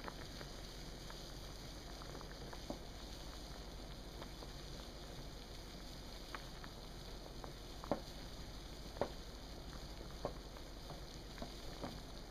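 Pot of water boiling: a steady bubbling hiss with scattered pops, two of them louder about two-thirds of the way through.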